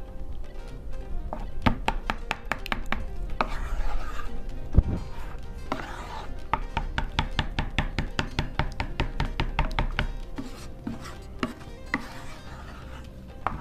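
Wooden spatula stirring thickened custard in a pot, knocking and scraping against the pot in quick runs of clicks.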